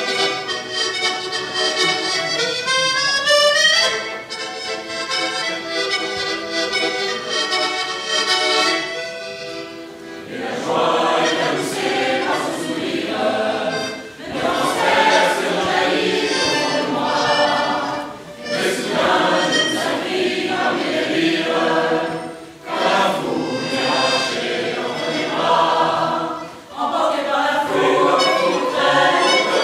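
Accordion playing, joined about a third of the way in by a choir singing in phrases with short pauses between them.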